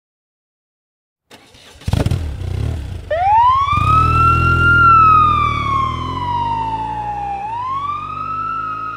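A siren wails over a low engine-like rumble. It winds up quickly about three seconds in, sinks slowly, then winds up again near the end. A sharp hit about two seconds in starts the rumble.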